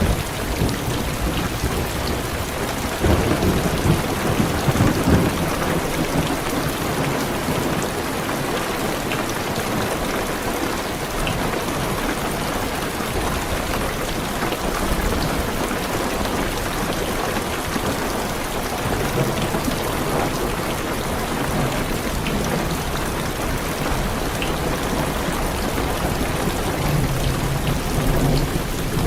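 Heavy rain pattering steadily on a car's roof and windows, with a low roll of thunder about three to six seconds in.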